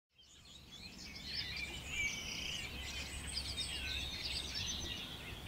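Outdoor ambience of small birds chirping and twittering, many short calls overlapping, fading in over the first second or so above a faint low steady hum.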